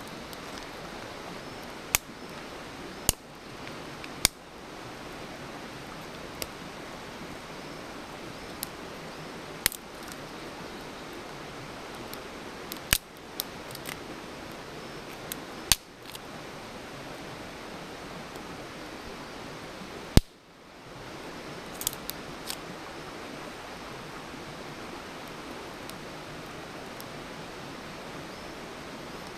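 Wood campfire crackling: a steady hiss with about a dozen sharp, irregularly spaced pops and snaps, the loudest about two-thirds of the way through.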